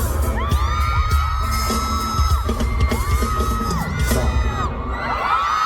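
Loud pop music with a heavy bass beat through a concert arena's sound system, under fans' high-pitched screams that rise and then hold, several overlapping at once.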